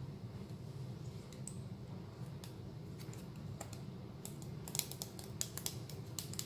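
Small sharp plastic clicks as new replacement switches are pressed into a dental chair foot pedal, scattered at first, then a quick run of clicks in the last second and a half. A steady low hum runs underneath.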